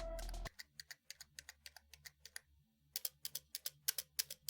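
Typing on a mechanical computer keyboard: sharp separate key clicks, a few scattered ones at first, then a quicker flurry of keystrokes about three seconds in.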